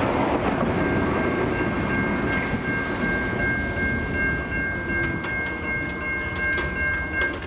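A departing Adelaide Metro railcar's running noise fades away. Over it, the crossing's Western Cullen Hayes boom-gate mechanisms give a steady two-note whine as they raise the booms, cutting off suddenly near the end as the booms reach upright.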